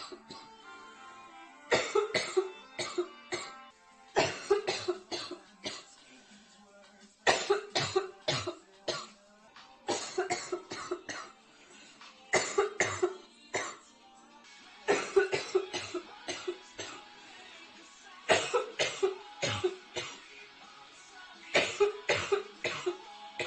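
A girl coughing in repeated fits from a severe chest cold, nearly uncontrollably: about eight bouts, each a quick string of several coughs, coming every two to three seconds.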